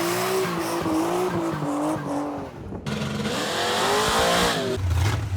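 Car tyres squealing: a loud, wavering screech over noise, broken by sudden cuts about three seconds in and again near the end, where a deep engine rumble takes over.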